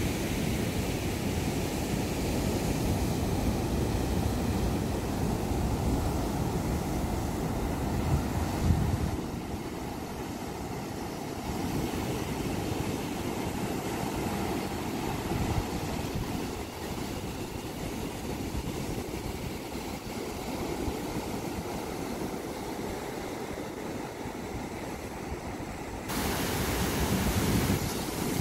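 Ocean surf breaking and washing up a flat sandy beach in a steady hiss, with wind rumbling on the microphone. It gets a little quieter about nine seconds in and louder again near the end.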